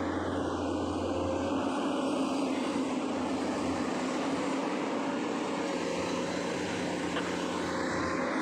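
Long-arm excavator's diesel engine running steadily, a constant low drone.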